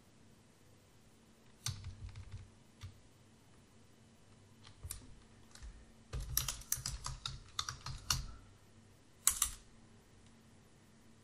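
Computer keyboard typing in short bursts of keystrokes: a few groups early on, a fast run of keys in the middle, and a couple of final strokes near the end.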